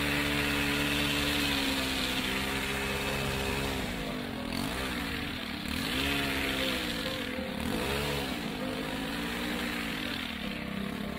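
Stihl long-reach hedge trimmer's small engine running at high revs while cutting, then repeatedly dropping and climbing back up as the throttle is eased off and reopened between cuts, about every second or so from a few seconds in.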